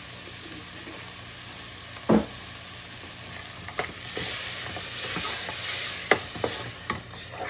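Browned ground turkey and sauce sizzling in a frying pan while being stirred, a utensil clicking against the pan several times, with one louder knock about two seconds in. The sizzle grows a little stronger from about four seconds in.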